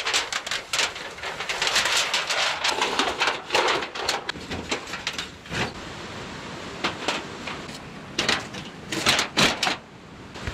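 Camp gear being handled: rustling and crinkling of sheeting with many short clicks and knocks, busiest in the first half and again near the end.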